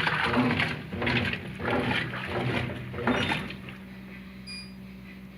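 Brastemp Ative 11 kg top-loading washing machine agitating a load: water and clothes swish in repeated strokes about twice a second, then stop about three and a half seconds in, leaving only a low steady hum.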